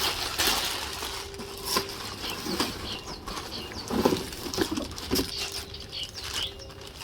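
Packaging and a door sill protector being handled and unwrapped: irregular rustling and crinkling with a few louder bursts about four and five seconds in.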